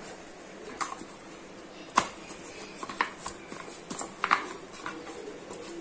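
Risen bread dough being kneaded again by hand in a steel bowl: scattered light knocks and clinks against the bowl, roughly one a second.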